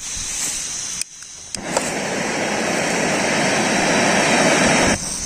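Hose-fed camping gas stove being lit: gas hissing, a click about one and a half seconds in, then the burner flame running with a steady rush that grows louder. The flame sound drops away near the end, leaving the gas hiss.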